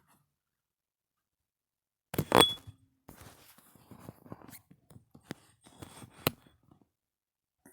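Handling noises: a loud thunk about two seconds in, then a few seconds of small knocks, clicks and rustling.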